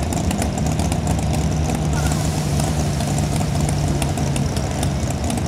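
Mini modified pulling tractor's engine running at a steady low idle, one constant pitch, while hooked to the weight transfer sled before the pull.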